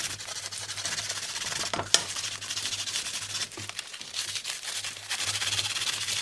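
Wad of crumpled aluminum foil, wet with Coca-Cola, scrubbed over a metal snare drum shell to take off rust: a continuous scratchy rubbing with a sharp click about two seconds in.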